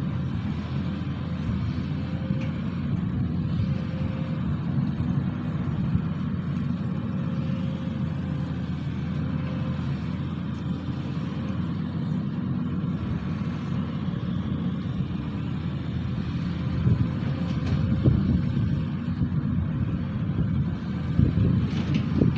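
Sany SY215C excavator's diesel engine running steadily under work, with a faint steady whine above it; it grows a little louder in the last few seconds.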